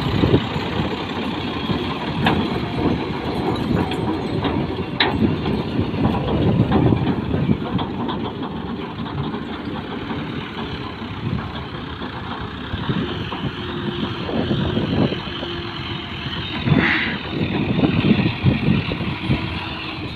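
Massey Ferguson tractor engine running steadily, with a few sharp knocks and rattles over it.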